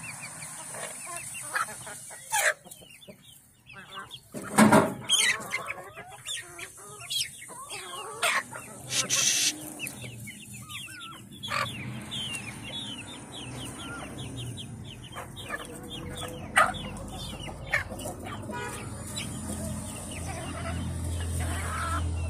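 A flock of chickens clucking while they peck at food scraps, with a few louder calls about five seconds in and again about nine seconds in.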